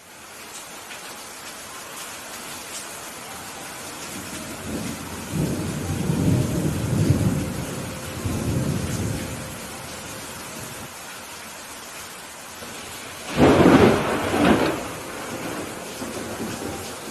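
Steady rain hissing through a thunderstorm, with a low rolling thunder rumble about a third of the way in. A louder, sharper thunderclap comes near the end.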